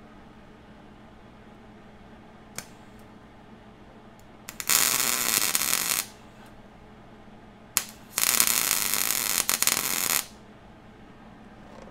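Wire-feed welder arc crackling in two welds, the first about a second and a half long, the second about two seconds, with a sharp click before each. The owner thinks the welder's wire feed needs its drive rollers tightened or a new gun or liner.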